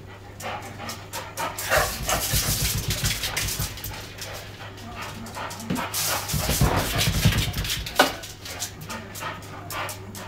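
A dog playing, with barking and rough, throaty vocal stretches twice, and many sharp clicks and scuffs around them.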